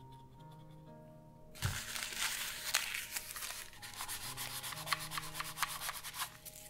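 Scratchy rubbing of a cleaning material against the plastic shell of an Xbox One controller, many quick strokes starting about a second and a half in and stopping shortly before the end, with faint background music under it.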